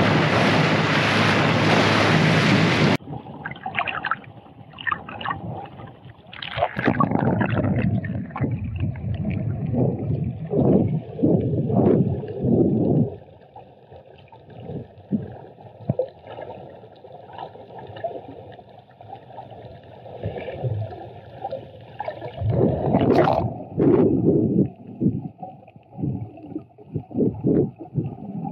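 A dinghy's outboard motor running, with wind and spray on the microphone, for about three seconds. Then the sound cuts abruptly to muffled underwater audio from a diver's camera, with irregular gushing surges of exhaled bubbles, some lasting several seconds.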